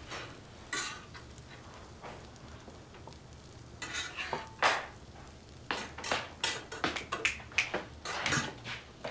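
Cutlery clinking and scraping against plates and dishes during a meal, sparse at first and then a quick run of clinks, one of them with a short ring.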